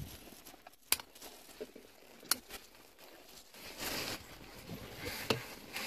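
Sharp plastic clicks and rubbing from the BMW E60's SZL steering column module as its steering angle sensor disc is worked free. There are single clicks about one and two seconds in, a scraping rub about four seconds in, and another click near the end.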